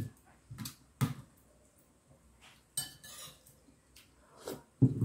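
Someone eating: a metal spoon knocking and scraping against a dish several times, with soft mouth sounds of eating in between. The sharpest knock comes near the end.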